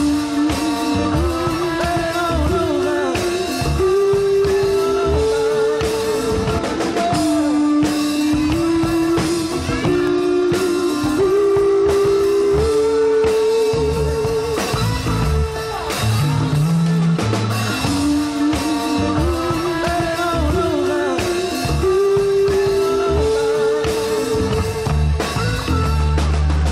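Music: a rock song with a sung melody over guitar and drums, the melody holding long, wavering notes.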